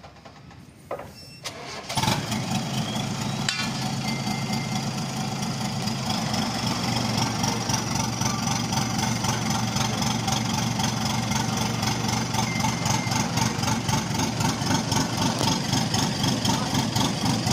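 Heavy machinery starts up abruptly about two seconds in and then runs steadily and loudly, with a high whine that climbs over the next few seconds as it comes up to speed.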